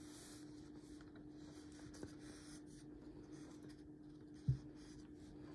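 Faint handling noise from a vinyl figure being turned in the hand on a table, with a small click about two seconds in and a short, soft low thump near the end, over a steady faint hum.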